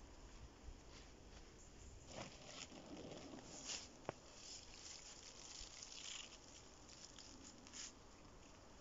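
Faint rustling and crackling of dry pine needles and moss as hands lay and press moss clumps onto a shelter roof, with one sharp click about four seconds in.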